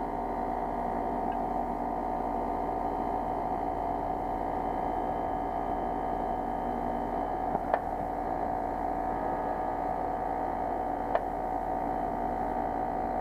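Carrier Infinity variable-speed heat pump outdoor unit running in pump-down mode, a steady hum of many even tones from its compressor and fan. Two brief clicks come about seven and a half and eleven seconds in.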